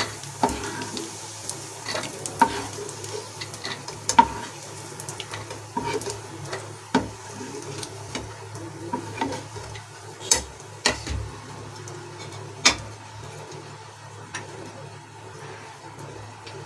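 Hot ghee sizzling in a nonstick frying pan while a wooden spatula scoops out roasted cashews, with scattered sharp clicks and scrapes of the spatula against the pan.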